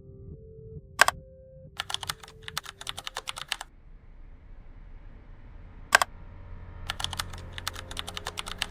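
Bursts of rapid typing-like clicks, as on a keyboard: a single click about a second in, a quick run of clicks, another single click near six seconds, then a second run. Faint steady low tones hum underneath.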